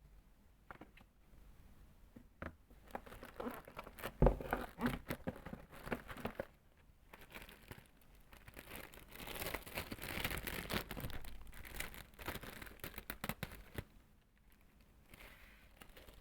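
Keyboard packaging being handled and unwrapped: scattered clicks and knocks, the loudest about four seconds in, then a longer stretch of rustling in the middle.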